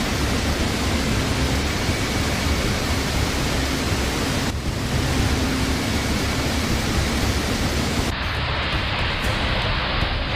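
Steady roar of rushing water, as from floodwater or a torrent. The character of the noise changes abruptly twice, about halfway through and near the end.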